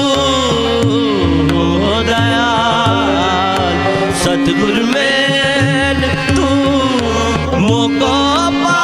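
Shabad kirtan in Raag Basant: a man's voice singing long, ornamented gliding phrases over a steady harmonium and tabla.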